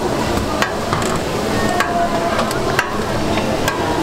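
Beaten egg sizzling on a flat steel griddle, with several sharp, irregular clicks and scrapes of a metal spatula against the griddle as the egg is cut between the gimbap rolls.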